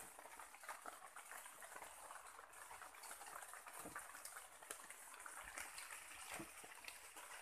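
Faint crackling and rustling, many small irregular clicks, as a man climbs and shifts his weight on a frame of wooden poles, over a steady high hiss.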